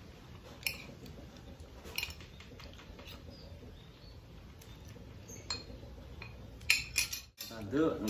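Metal spoon clinking against a plate or bowl while someone eats: a few short, scattered clinks, the loudest cluster about seven seconds in.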